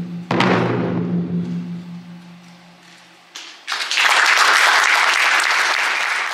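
A last loud wadaiko (Japanese taiko) stroke rings out and fades away. A little under four seconds in, audience applause breaks out.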